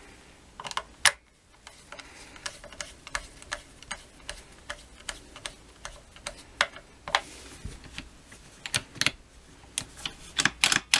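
A run of small sharp clicks and taps, about three a second, from hands working on an old Pioneer P40 chainsaw's air filter and its throttle and choke controls.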